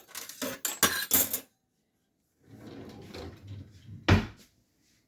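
Kitchen drawer and cutlery being handled as a fork is fetched: a quick clatter of metal clicks in the first second and a half, a quieter rustling stretch, then one loud thump about four seconds in.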